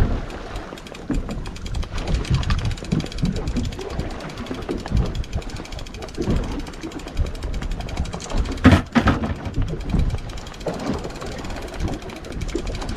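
Wind buffeting and sea water slapping around a small fishing boat in a choppy sea, with irregular thuds and a sharp knock about nine seconds in.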